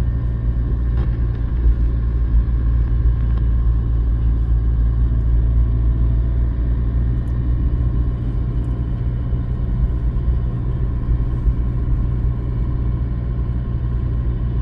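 Steady low rumble of a car driving, heard from inside the cabin: engine and tyre noise on wet asphalt.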